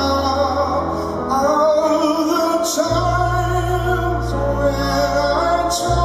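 A male vocal group singing a slow ballad live, the lead singer holding long sung notes over instrumental backing with a violin. A deep bass note comes in about halfway through.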